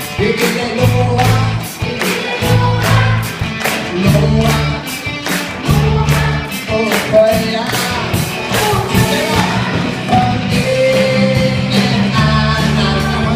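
Upbeat worship song in Swedish, with a steady drum beat, bass and a group singing.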